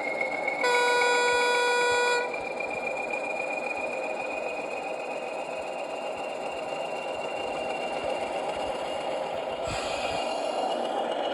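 Sound decoder of a model NIR Hunslet diesel locomotive playing a single horn blast of about a second and a half through its small onboard speaker, over a steady diesel engine sound with a thin whine slowly rising in pitch. A brief noisy burst comes near the end.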